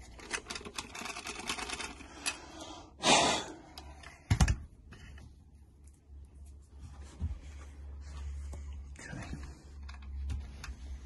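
Small plastic clicking and scratching as drilled-out plastic is picked from freshly drilled holes in an RC car part. A short loud rush of noise comes about three seconds in, then a single sharp knock a second later, then scattered lighter clicks.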